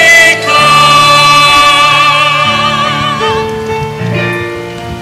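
A singer holds one long note with vibrato over sustained keyboard chords, ending a sung verse. The voice stops a little past halfway, and the keyboard plays on alone.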